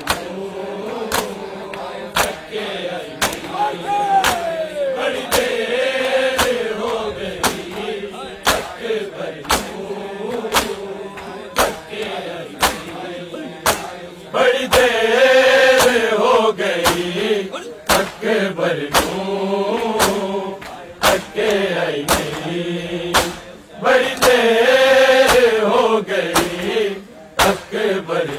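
Men chanting a noha in unison while mourners beat their bare chests in matam, the hand slaps on chests keeping a steady beat about one and a half times a second. The chant swells louder twice, around the middle and again near the end.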